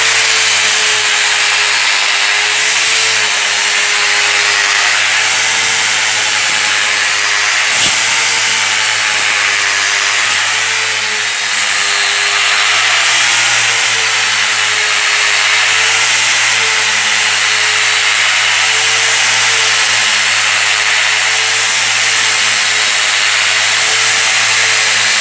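Electric angle grinder running steadily with a 50-grit dry resin diamond polishing pad, grinding a marble floor dry as the first, coarsest step of polishing. A continuous motor whine that wavers slightly in pitch as the pad is pressed and moved, over the hiss of the pad on the stone.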